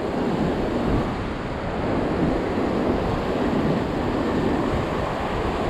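Waves surging and breaking against shore rocks, a continuous wash of surf, with wind buffeting the microphone.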